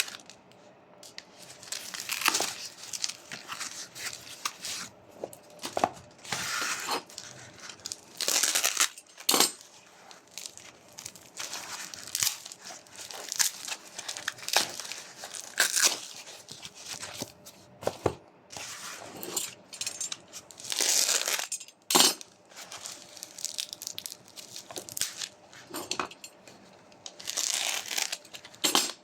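Watch packaging being torn open and handled: irregular bursts of tearing and crinkling, with a few sharp clicks and knocks.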